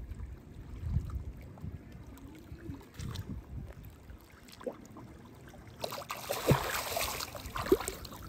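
Swimming-pool water sloshing and lapping around a swimmer who is under the surface, low and rumbly. About six seconds in comes a louder splashing rush as he comes back up.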